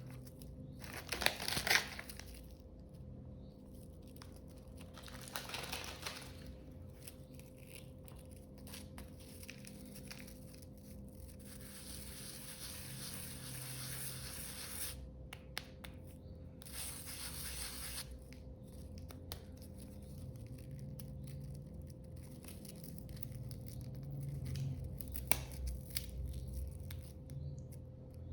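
Wood fire crackling and hissing in a fireplace, with irregular sharp pops, over a faint steady hum.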